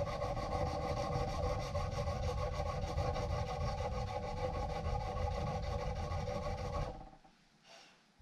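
Sanding of the steel knife blank, a steady abrasive rubbing that stops abruptly about seven seconds in.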